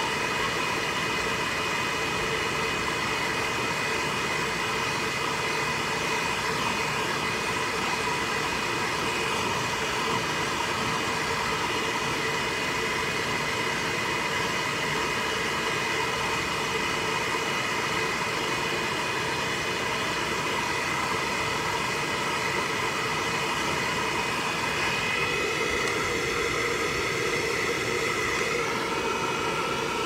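Hand-held hair dryer running steadily: rushing air with a steady whine of several tones over it, which shifts a little about 25 seconds in.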